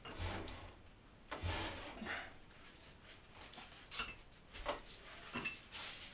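Irregular knocks, scrapes and rubbing of wood and metal being shifted by hand around a lathe on its wooden cribbing. There are half a dozen separate knocks, sharpest about four seconds in and again near five and a half seconds.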